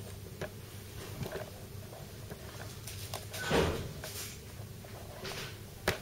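Light clicks and knocks of things being handled on a wooden table over a low room hum. About three and a half seconds in there is one louder half-second scuffing noise, and there is a single sharp click just before the end.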